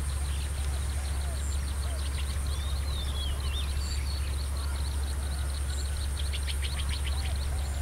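Small birds chirping and calling in short rising and falling notes, with a quick run of ticking chirps near the end, over a steady low rumble.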